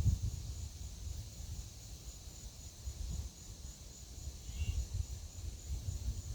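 Wind gusting against the microphone as a storm comes in, over a steady high drone of insects, with one short bird chirp about two-thirds of the way through.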